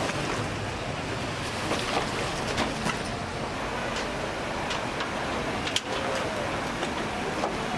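Steady rushing noise of fast-flowing floodwater, with a few short clicks and knocks scattered through it.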